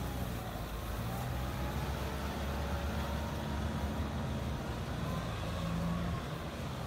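Kubota farm tractors' diesel engines running steadily under load, pulling implements through flooded paddy mud: a continuous low engine hum.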